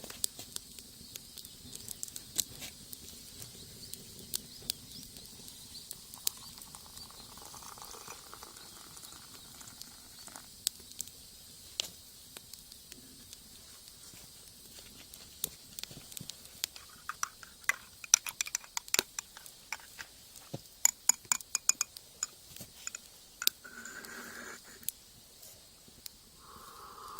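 Wood fire crackling in a rocket stove, with irregular sharp pops that come thicker in the second half.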